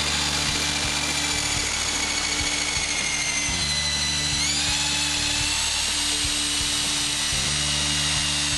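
Handheld drill spinning a paddle mixer in a bucket of cementitious overlay mix as the dry powder is poured in; its motor whine sags slowly under the load, then picks back up about four and a half seconds in. Background music plays underneath.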